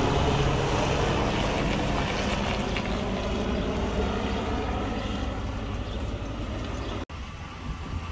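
Helicopter flying overhead, its rotor and engine noise steady and slowly fading as it moves away, cut off suddenly about seven seconds in.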